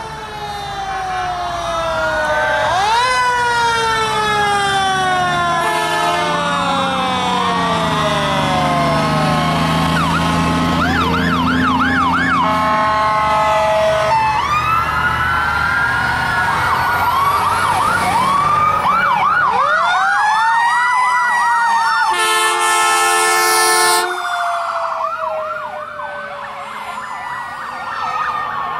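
Sirens of passing fire engines and ambulances, several at once: overlapping wails sweeping up and down, with stretches of fast yelp, over the low rumble of a heavy vehicle's engine in the first half. A loud, steady horn blast lasting about two seconds comes about three-quarters of the way through.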